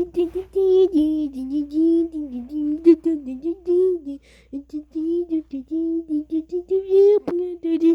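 A child humming a wordless tune in one continuous line that moves up and down in pitch, with two sharp clicks, one about three seconds in and one just past seven seconds.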